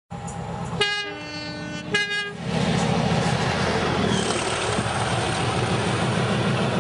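Class 37 diesel locomotive sounding its two-tone horn, a short high note, a longer low note and a short high note again, then its English Electric engine running with a loud, steady low throb as it approaches.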